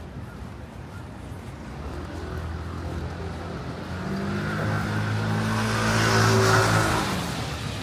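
A motor vehicle drives past close by: its engine note and tyre noise grow louder, peak about six seconds in, then fade away.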